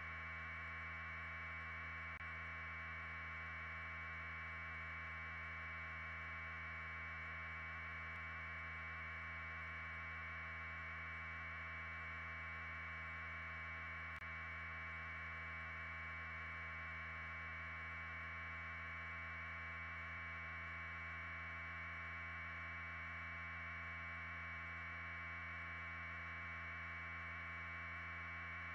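Steady, unchanging hum and hiss with no distinct events: fixed low hum tones under a band of mid-pitched hiss.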